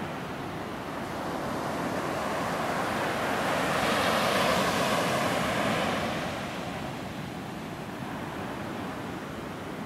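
Sea surf washing on a beach: a steady wash of waves that swells to a peak about four to five seconds in and then eases off.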